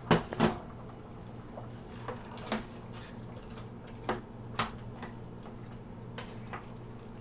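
A kitchen utensil knocking against a cooking pot while peas and carrots are stirred into a stew. The knocks come in pairs about every two seconds, the first pair loudest, over a steady low hum.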